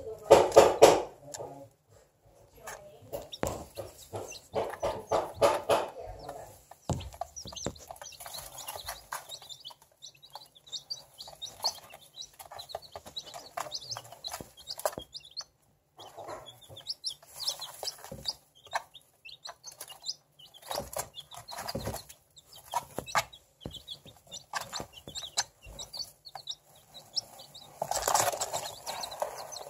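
Young chicks pecking cracked corn from a feeder dish: a scatter of quick sharp pecking taps with short high peeps in between, and a louder flurry of pecks near the end.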